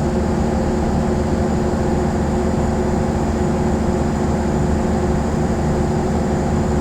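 Canopied standby generator's engine running steadily at zero load, a constant low hum with an even drone on top.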